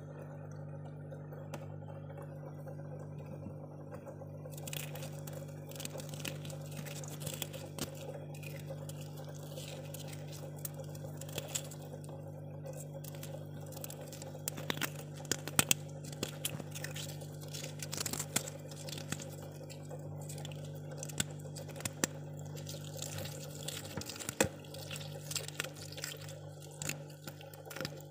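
Freezer running with a steady low hum. From about five seconds in, irregular small crackles and clicks are heard over it.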